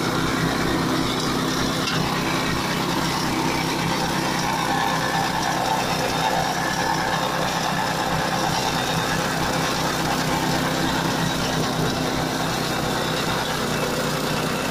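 Hand-operated flail mower's 8 HP single-cylinder petrol engine running steadily at working speed while its flail rotor mulches tall grass.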